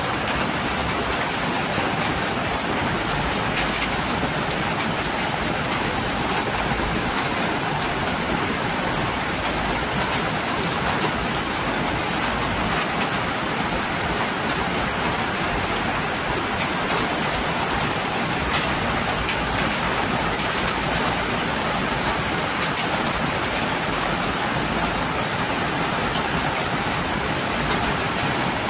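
Heavy tropical rain falling in a steady downpour, an even hiss with scattered drops ticking on nearby surfaces.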